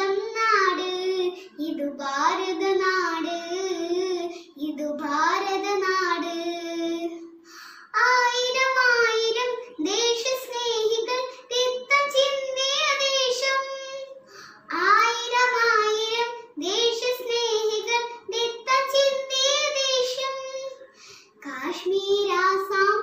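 A young girl singing solo, unaccompanied, in phrases of held, wavering notes with short pauses for breath between them. About eight seconds in, the melody moves up to a higher pitch.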